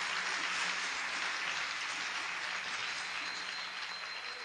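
Concert audience applauding, the clapping slowly fading away.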